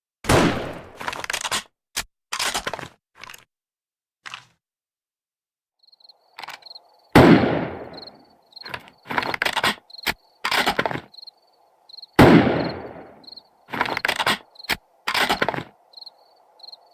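Remington Model 700 BDL bolt-action rifle fired three times, about five seconds apart. Each shot is followed by a quick run of short, sharp clacks as the bolt is worked. Crickets chirp in the background from about six seconds in.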